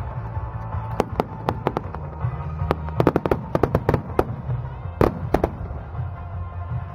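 Fireworks bursting in a rapid string of sharp bangs and cracks, thickest in the middle, with two loud reports near the end, over music playing in the background.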